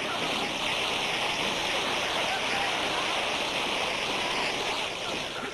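Water pouring down in a steady, heavy rush, stopping near the end.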